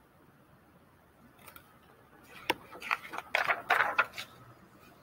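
A picture book's paper page being turned by hand: a crackling rustle of paper starting about two seconds in and lasting about two seconds.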